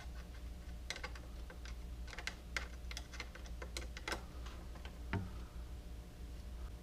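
Small metal parts of a bicycle seat clamp and its bolts clicking and tapping irregularly as they are handled and lined up by hand.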